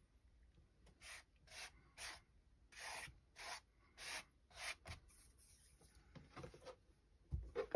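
Hands rubbing and smoothing a sheet of Hollytex polyester fabric down over solvent-damp comic-book pages: about nine short brushing strokes, roughly two a second, then softer rustling and a low thump near the end.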